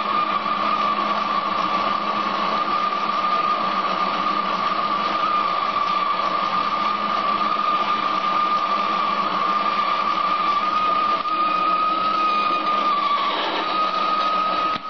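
Paramount BLC-1016 metal lathe running a boring pass in hard steel on its coarsest power feed. The motor and gear train give a steady whine, with a high steady tone over a lower hum, and the tone wavers briefly near the end.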